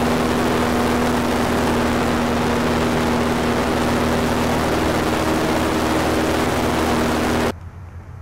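Airboat engine and propeller running steadily at speed: a loud, even drone with a strong hum. It cuts off abruptly near the end.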